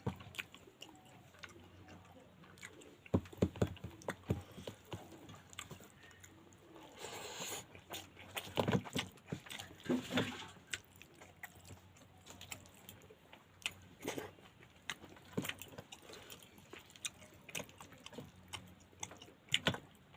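Mouth sounds of someone eating pangas fish curry: chewing and biting with irregular wet clicks and smacks, thickening into a louder, busier stretch a little past the middle.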